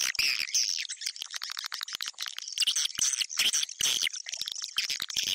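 Recorded swiftlet lure call: dense, rapid twittering and chirping of edible-nest swiftlets, a high, choppy stream of short chirps with no pause. It is a call track played to draw swiftlets into a swiftlet house.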